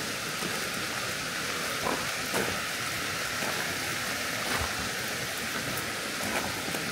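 Running water from a stream, a steady rush, with a few sharp ticks now and then.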